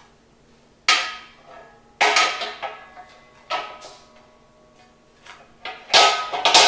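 Metal cooking parts of a Cadac Carri Chef 2 portable gas barbecue clanking as a cooking plate is set into place. There are sharp clanks with a brief metallic ring about a second in, at two seconds and around three and a half seconds, then two more close together near the end.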